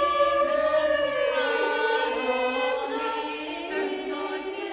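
Mixed church choir singing long held chords that shift slowly from note to note, growing fainter near the end.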